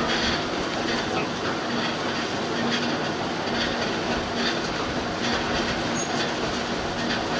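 Bucket-elevator unloader running with its buckets in a barge's bulk cargo: a steady mechanical clatter with a regular clank a little under once a second, over a low steady hum.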